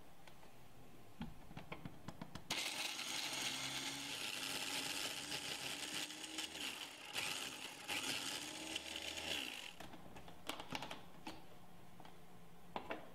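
Electric mini chopper whirring as its blade chops basil leaves, pine nuts and garlic, running for about seven seconds before cutting out. A few light clicks come before it starts and after it stops.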